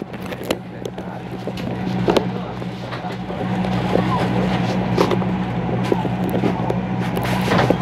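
A passenger river launch's engine running with a steady low drone, heard from inside the cabin, with faint voices and a few light knocks over it.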